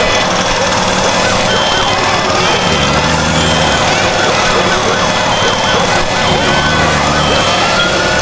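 A loud cacophony of many annoying sound effects layered at once. A siren wails, rising and falling slowly, over rows of repeating electronic beeps and other looping noises.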